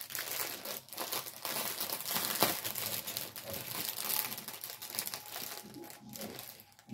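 Small plastic bags of diamond-painting drills crinkling as they are rummaged through and sorted by hand, a dense run of crackles that dies down near the end.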